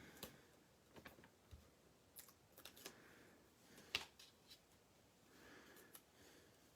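Faint scattered clicks and light taps of small paper pieces and adhesive foam dimensionals being handled, with one sharper click about four seconds in.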